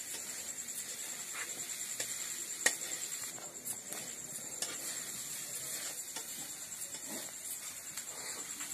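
Scattered clicks and scrapes of a spatula stirring poha in a small iron kadai over a wood fire, with one sharp clack a little under three seconds in. A steady high trill of crickets runs underneath.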